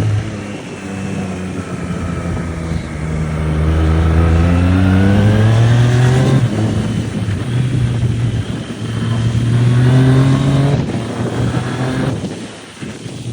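Triumph Street Triple RS's 765 cc three-cylinder engine accelerating hard, its pitch climbing steadily for about six seconds. It drops sharply at a gear change, pulls and climbs again, then eases off near the end.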